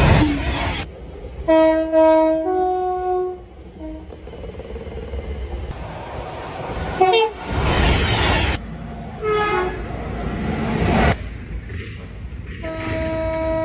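A run of train horn soundings, one clip after another: a two-note blast about a second and a half in whose chord steps up partway, two brief toots in the middle, and a longer sustained blast starting near the end. Between the horns comes the rushing noise of trains passing.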